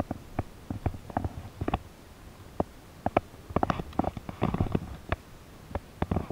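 Irregular clicks and knocks with a low rumble: handling noise close to the microphone as a spinning rod is worked, and they bunch together in the middle.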